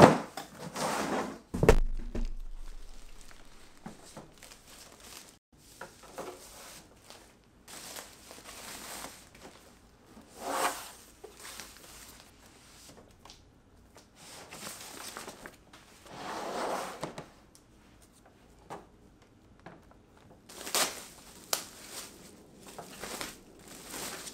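Monitor packaging being handled during unboxing: two sharp knocks in the first two seconds, then on-and-off rustling and crinkling of wrapping and box parts.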